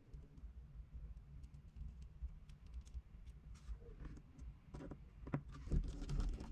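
Faint, scattered light clicks and taps of a small screwdriver and tiny screws being driven into an iPad mini 2's LCD screen, with a few sharper clicks near the end, over a low steady hum.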